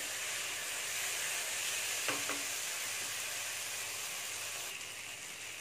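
Vegetable strips sizzling steadily in oil and sauce as they stir-fry in a non-stick kadai, a fairly even hiss that eases a little near the end.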